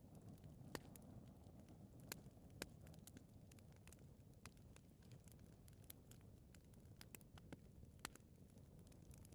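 Faint fireplace fire burning: a low steady rush of flame with irregular sharp crackles and pops, a few louder ones standing out, one of the loudest about eight seconds in.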